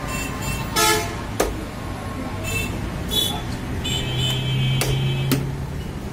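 Street traffic with a vehicle horn tooting briefly about a second in and a longer pitched horn or engine note near the middle to end. A few sharp chops of a butcher's knife into a wooden log chopping block as goat meat is cut.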